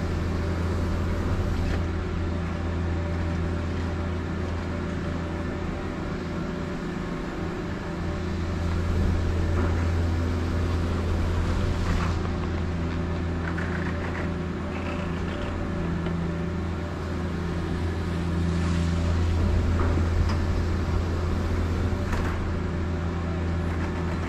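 Doppelmayr UNI-G detachable chairlift drive terminal running: a steady machine hum with a low tone and overtones, with a few sharp clicks as chairs pass through.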